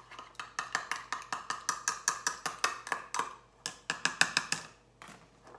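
Egg wash being beaten in a bowl, the utensil clinking against the side of the bowl about five times a second; it stops about four and a half seconds in.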